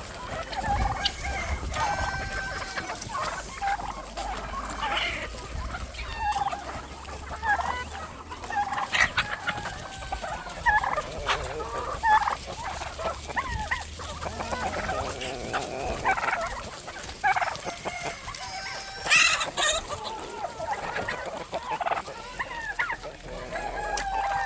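A flock of chickens clucking and squawking, many short calls overlapping, with roosters crowing now and then and turkeys gobbling.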